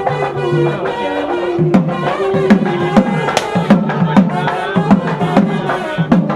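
Music with quick hand-drum strokes under a wavering melody line.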